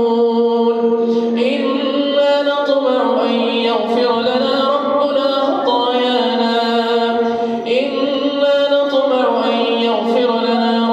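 A man's voice chanting a Quran recitation in the melodic tajwid style. Each note is drawn out for several seconds and slides between pitches.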